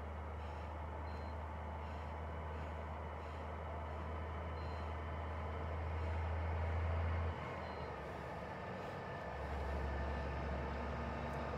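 Heavy vehicle's diesel engine idling, a steady low rumble. It drops away about seven seconds in and picks up again a couple of seconds later. Faint short high beeps sound every three or four seconds.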